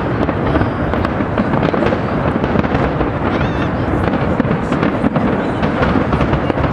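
Large fireworks display: a dense, continuous barrage of bangs and crackling with no let-up.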